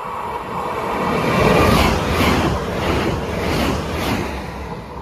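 Trenitalia Hitachi Rock (ETR 421) electric regional train passing through at speed. The rush of wheels and air swells to a peak and then eases. Several sharp clacks, some in pairs, come as the wheelsets cross rail joints.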